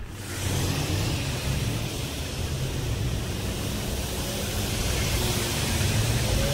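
Street traffic on a rain-wet road: a steady hiss of tyres on wet tarmac over a low engine rumble.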